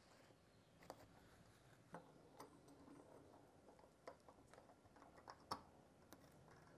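Faint, scattered clicks and ticks of steel synchro parts being handled and pressed onto a Porsche 915 transmission gear, the loudest about five and a half seconds in.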